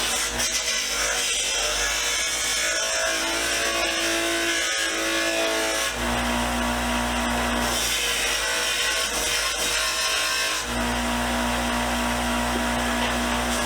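A power tool runs steadily, abrading the rusty sheet-metal toolbox, under background music with held notes that change every second or two.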